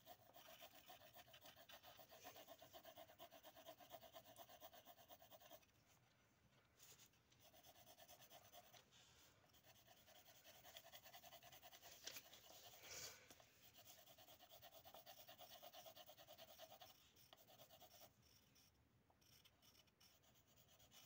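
Faint pencil-on-paper shading: quick back-and-forth scratching strokes in stretches of a few seconds with short pauses between, and a brief louder scrape just past halfway.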